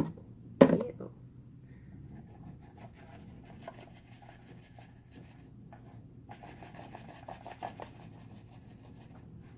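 Cardboard baking soda box tapped and shaken over a bowl to sprinkle in a little powder, a faint scratchy rustle with small ticks. A single sharp knock comes about half a second in.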